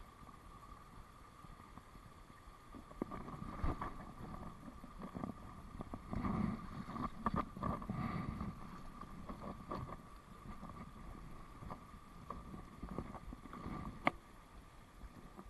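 Steady rush of stream water pouring over a low weir, with irregular splashing and knocks from about three to ten seconds in as a hooked brown trout thrashes at the surface and is drawn to a landing net. A single sharp knock near the end.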